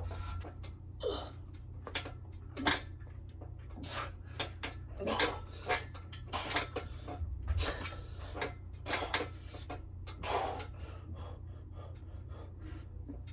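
Hard, irregular breathing from a man doing hanging leg raises and dips on a home power tower, mixed with knocks and rattles from the tower's metal frame. A steady low hum runs underneath.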